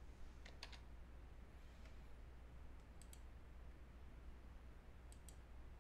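Faint clicking of a computer keyboard and mouse as a running program is stopped from the command prompt: three pairs of quick clicks, about two and a half seconds apart, over a low steady hum.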